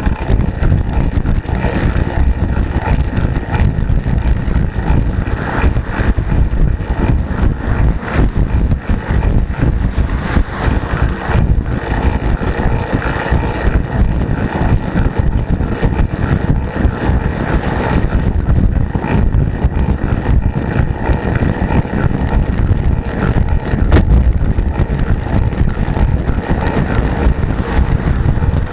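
Steady, loud wind noise on the microphone of a camera mounted on a bicycle riding at speed, a low rushing rumble with no clear break.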